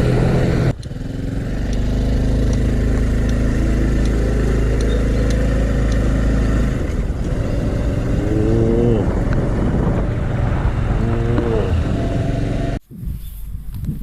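Honda Cross Cub 110's small single-cylinder engine running under way, mixed with road and wind noise, its pitch rising briefly twice in the second half. Near the end it gives way to a much quieter scene.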